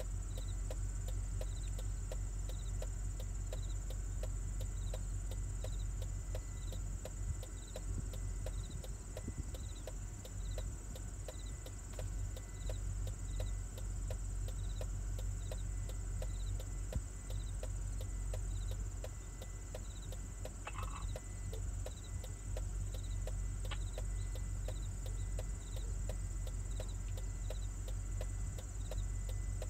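Outdoor insect chorus: a steady high-pitched buzz with a regular chirp about three times every two seconds, over a constant low rumble. A brief higher call stands out about two-thirds of the way in.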